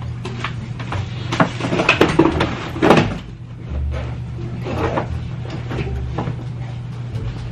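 A run of irregular knocks and clunks of things being moved and handled, the loudest about three seconds in, over a steady low hum.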